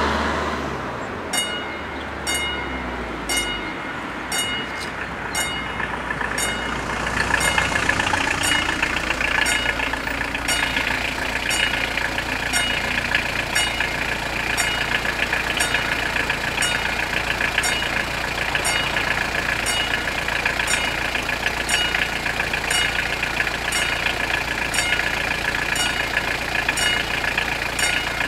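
Level-crossing warning bells start ringing about a second in, striking about twice a second. From about seven seconds in a second, denser ringing joins them, over the low hum of a car engine idling.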